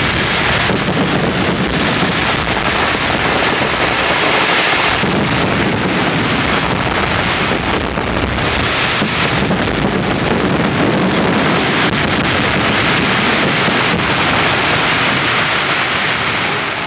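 Fireworks bursting in a dense, continuous barrage, so many at once that they merge into one unbroken noise with no single bang standing out. This is the finale of the display, and it dies down near the end.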